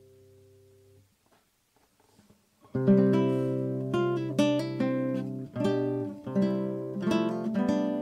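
Background acoustic guitar music: a held chord fades out within the first second, a short near-silent pause follows, then about three seconds in the guitar comes back loudly with a run of plucked notes and strummed chords.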